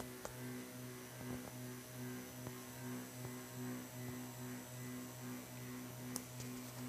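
Stepper motor running under Arduino control, giving a low electrical hum that pulses evenly, with a faint click about six seconds in.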